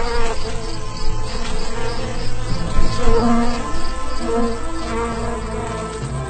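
Buzzing wings of a swarm of ladybugs in flight, a cartoon insect sound effect, with music underneath.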